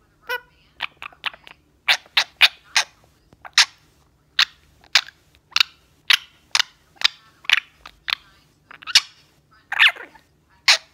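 Blue Indian ringneck parakeet calling in a rapid run of short, sharp chirps and clicks, about two a second, with a longer pitched squawk about ten seconds in.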